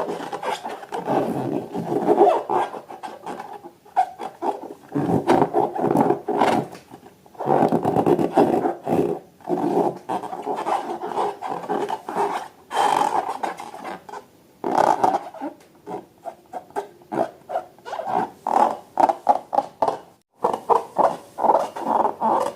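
Rubber balloons being rubbed and squeezed, giving rasping squeaks in irregular spells that turn into a quick stuttering run near the end.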